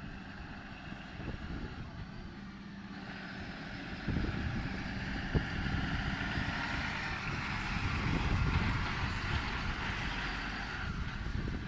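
MAN TGM 18.340 fire engine's 340 hp diesel engine running as the truck drives slowly up and passes close by, getting louder from about four seconds in. There is a single sharp knock about five seconds in.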